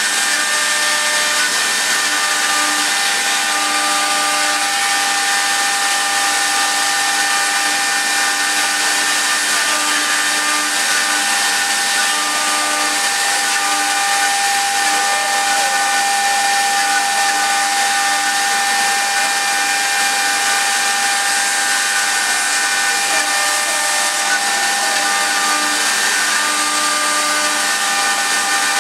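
CNC wood turning lathe running, a steady hiss with several high steady whining tones, some of which fade in and out.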